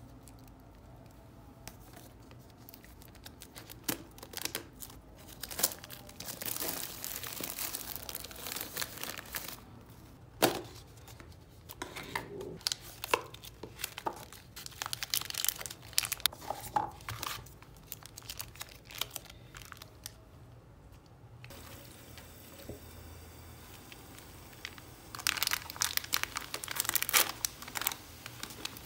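Plastic packaging crinkling and tearing in bouts as an instant tteokbokki cup is opened and its plastic sauce and rice-cake packets are pulled out and handled, with a loud spell of crinkling near the end from the bag of rice cakes.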